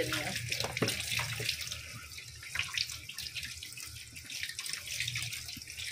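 Kitchen tap running onto a bunch of fresh coriander held in the hands over a stainless-steel sink, with water splashing and spattering as the leaves are rinsed.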